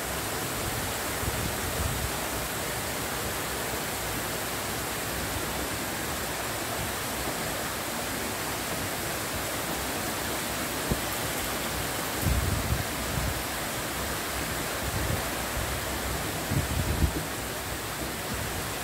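Heavy rain pouring down in a squall, a steady even hiss. A few brief low rumbles swell and fade in the second half.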